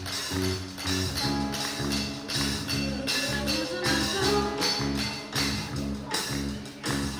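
Live rock band playing an instrumental passage: drum kit keeping a steady beat under bass guitar, electric guitars and keyboard, with no vocals.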